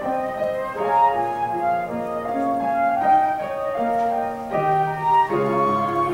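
Flute playing a slow melody of held notes over piano accompaniment, with the treble choir's voices coming in near the end.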